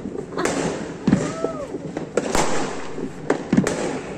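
Fireworks going off: about six sharp bangs and pops at irregular intervals over four seconds.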